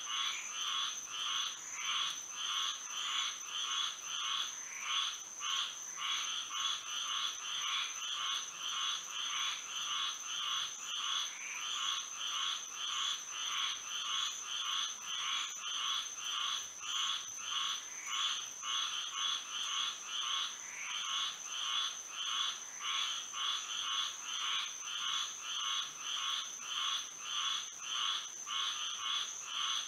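A chorus of frogs calling at night, short calls repeating at about two a second without a break, over a steady high-pitched tone.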